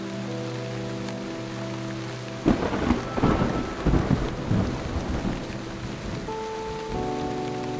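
A clap of thunder breaking suddenly about two and a half seconds in and rumbling for about three seconds, over steady rain and soft background music with held chords.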